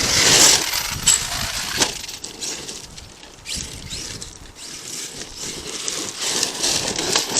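Arrma Kraton 8S electric RC monster truck running over dirt and gravel: its brushless motor whines up and down as it accelerates and slows, with a burst of loose stones at the start and scattered knocks and clatter as it bounces.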